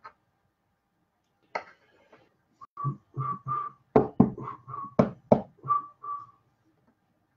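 A person whistling a short run of notes, mostly on one pitch, with four sharp knocks falling among the notes near the middle.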